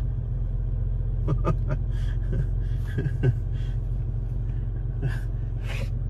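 Steady low rumble of a slow-moving SUV heard from inside the cabin, engine and road noise together, with a few light clicks about a second and a half and three seconds in.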